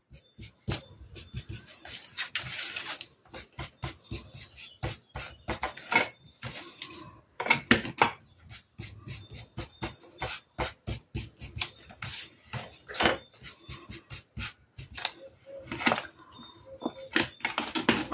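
A small ink pad rubbed and dabbed along the edges of cut kraft-paper frames: a run of quick, irregular scuffing strokes and light taps on paper.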